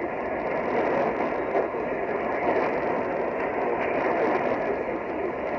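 Loud, steady hiss of radio static, with no tones or voice in it.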